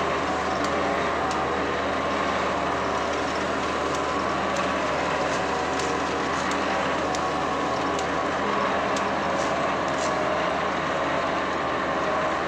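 Asphalt paver running steadily at close range while laying asphalt: a constant engine and machinery drone, with faint scattered clicks on top.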